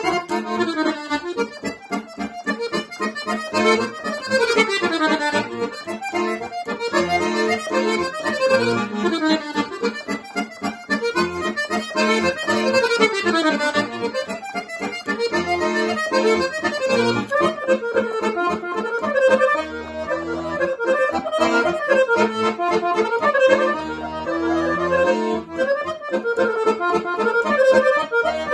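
Dallapè chromatic button accordion playing a Serbian kolo dance tune solo, quick runs of treble notes rising and falling over a punctuating bass accompaniment.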